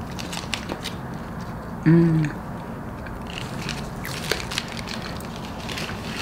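Close-up eating sounds of a Reese's peanut butter cup: scattered small crackles and mouth clicks, with one short hummed "mm" about two seconds in.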